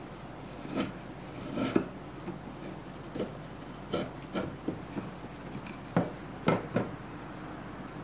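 Hand chisel paring wood inside the blade opening of a Japanese wooden plane block (kanna dai): a string of short, irregular scraping cuts and light knocks.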